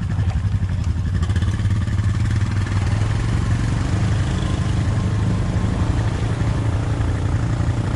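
ATV engine running steadily, a dense even firing pulse over a strong low hum.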